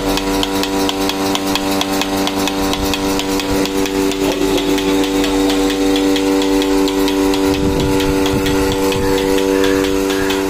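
Portable milking machine running: its electric vacuum pump hums steadily while the pulsator on the bucket lid clicks in a fast, even rhythm.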